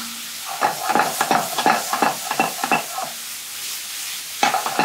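Beef and vegetables sizzling in a hot frying pan as a freshly added soy sauce and red wine vinegar seasoning boils down off the flame, with the pan tossed and stirred in a run of clattering knocks for a couple of seconds.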